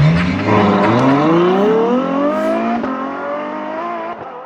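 Car engine accelerating hard, its pitch climbing, then dropping at a gear change about three seconds in and rising again. The sound fades out near the end.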